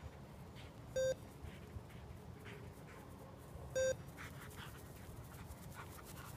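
Two short, steady electronic beeps from the E-Collar Technologies sound box on a Mini Educator remote, one about a second in and one near four seconds. Each beep marks a tap of low-level e-collar stimulation, telling the dog it is heading the wrong way.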